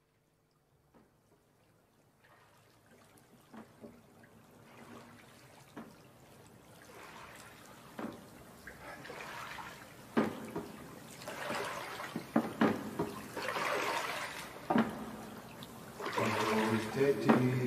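Water sounds fading in from silence: sloshing, trickling water that grows louder and swells in waves, with splash-like hits every couple of seconds.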